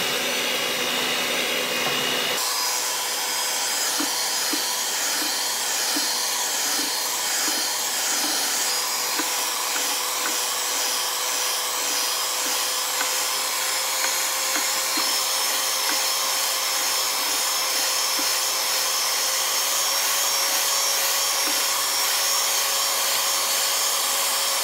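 Electric mixer running steadily, its beaters whipping heavy cream toward soft peaks.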